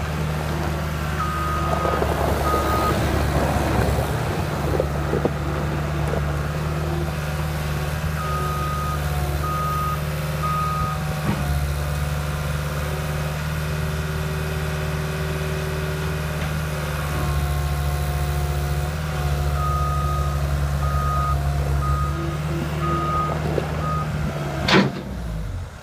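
Caterpillar 252B skid steer loader's diesel engine running steadily while it manoeuvres, with its reverse alarm beeping in three spells. Near the end there is one sharp bang, and the engine sound stops just after it.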